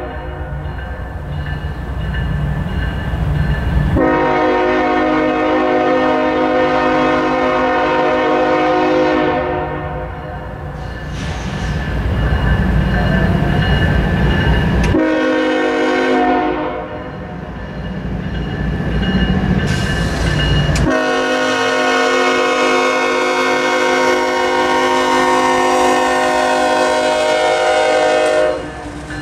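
Freight locomotive's air horn sounding a series of long blasts, each held several seconds, as a CSX ES44AH-led train approaches the grade crossing. A mechanical crossing bell rings underneath.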